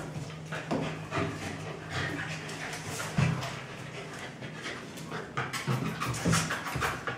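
Two dogs play-fighting: panting and short breathy noises, with their claws clicking and scrabbling on a tiled floor.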